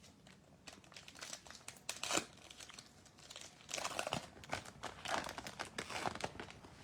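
Plastic wrapper of a basketball trading-card pack being torn open and crinkled by hand: a run of crackling rips, loudest about two seconds in and again from about four to six seconds in.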